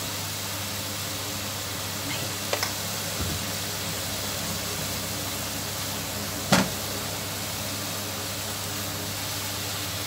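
Strips of veal sizzling steadily in a frying pan, stirred with a silicone spatula, over a steady low hum. A few light taps come about two and a half seconds in, and a single louder knock of the spatula against the pan about six and a half seconds in.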